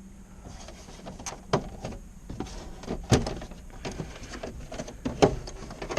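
Sharp plastic clicks and knocks of a van's dashboard trim panel being handled and worked loose by hand, the loudest about three seconds in and again near the end.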